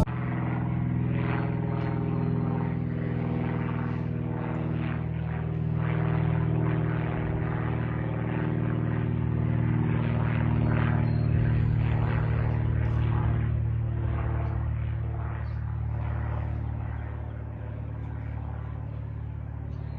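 A light general-aviation propeller aircraft flying over, its engine and propeller giving a steady drone. The drone grows louder toward the middle and fades somewhat near the end.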